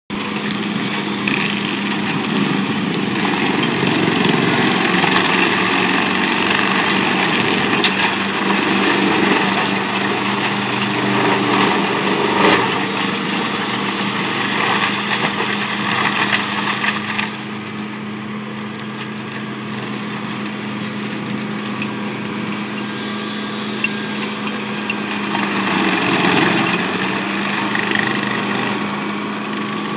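Wood chipper (mulcher) engine running steadily under load while it shreds Christmas trees, with the crackle of branches being chipped and a few sharp cracks. The chipping is heaviest through the first half, then eases to a lighter run, and the engine pitch dips briefly late on as it bogs and recovers.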